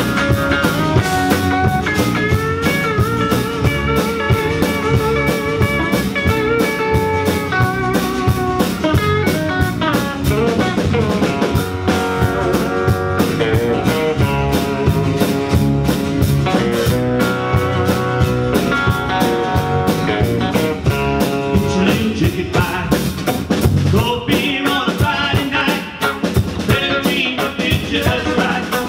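Live country-rock band playing: electric bass, acoustic and electric guitars over a drum kit, heard through the room.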